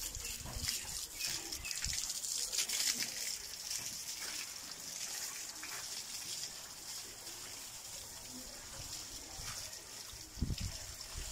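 Water from a garden hose spraying onto a motorcycle and splashing and trickling off its bodywork, a steady hiss that eases slightly after the first few seconds.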